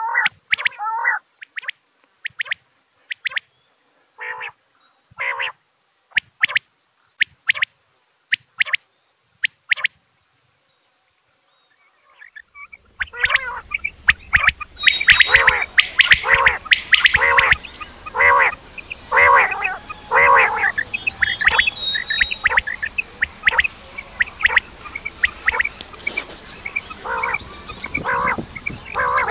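Quail (batair) calling in short, repeated notes, the kind of call track used to lure quail for hunting. For the first stretch the notes come singly with clean pauses between them; after a short silence, about halfway through, the calls come faster and overlap over a steady background hiss.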